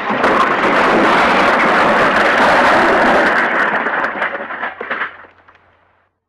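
Library crash sound effect: a long, loud crash thick with clattering impacts, which dies away over its last couple of seconds.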